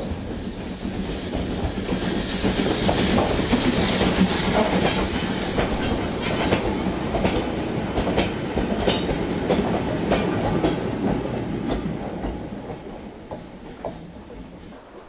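A small industrial steam tank locomotive and its train of coaches and a wagon running past. The running noise builds to its loudest a few seconds in. As the coaches go by, their wheels click over the rail joints, and the sound fades away after about twelve seconds.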